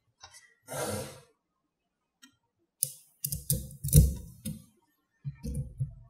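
Small neodymium magnetic balls clicking and snapping together as fingers press and reshape them. There is a brief rush of noise about a second in, and clusters of quick clicks with soft knocks in the second half.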